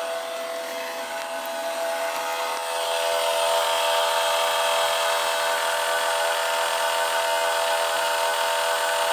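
2021 MG5 electric car making a loud, steady whirring whine while rapid charging, several fixed tones over a hiss, growing a little louder about three seconds in.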